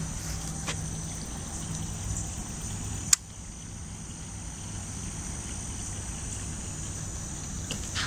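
Insects singing in a steady high pitch, with one sharp click about three seconds in.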